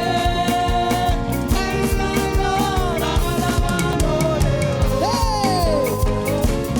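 Upbeat gospel praise band music with a steady drum beat and sustained, sliding melodic lines over it.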